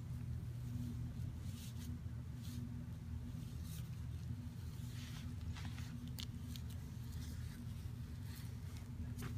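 Mixed-hair calligraphy brush dragging across rough, crisp bamboo-fibre gasenshi paper, making short, faint, scratchy rasps at irregular intervals as the strokes are laid down. A steady low hum runs underneath.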